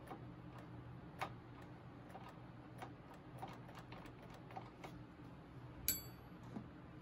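Light metallic clicks and ticks of a small bolt being handled by hand, with a louder click a little over a second in and a sharp, briefly ringing metal clink just before the end, over a steady low hum.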